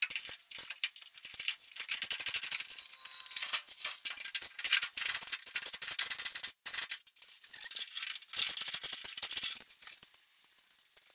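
Hand ratchet wrench clicking in several runs of rapid clicks with short pauses between, loosening the nuts that hold the rear bumper.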